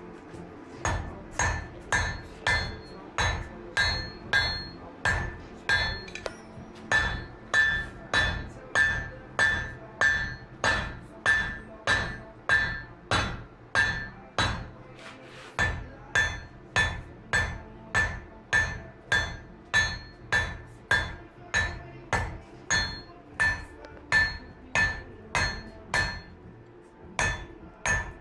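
Blacksmith's hand hammer striking metal on an anvil in a steady rhythm, a bit under two blows a second, each blow ringing.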